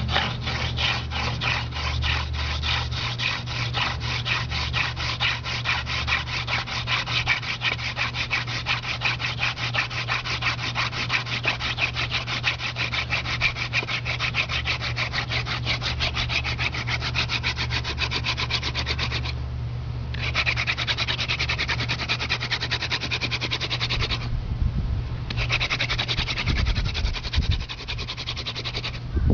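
Horseweed spindle spun between the palms on a palm-branch fireboard in a hand drill: a dry, fast, rhythmic rubbing of wood on wood as the spindle grinds out hot dust toward an ember. The rubbing stops briefly twice, around twenty and twenty-four seconds in.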